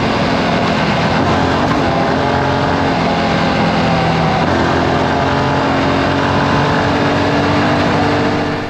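Yamaha Ténéré 700's parallel-twin engine running under way through a Camel ADV exhaust with the dB killer fitted. The note holds steady between a few step changes in pitch, over a rush of wind, and cuts off suddenly near the end.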